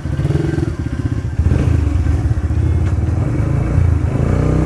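Yamaha YB125Z's single-cylinder four-stroke engine running through an aftermarket Hayabusa exhaust as the motorcycle pulls away, getting louder about a second and a half in.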